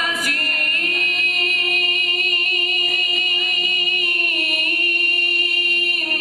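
A man's voice chanting one long held note in a melodic recitation style, amplified through a microphone, with a slight waver in pitch about four and a half seconds in.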